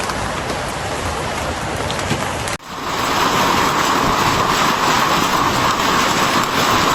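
Heavy hail pelting down: a dense, continuous hiss of hailstones striking hard surfaces. About two and a half seconds in it cuts sharply to a louder, denser stretch of the same downpour.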